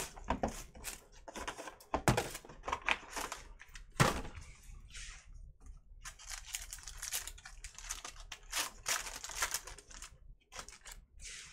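Cardboard hobby box handled, with a few sharp knocks and taps. Then a foil-wrapped Panini Luminance football card pack is crinkled and torn open.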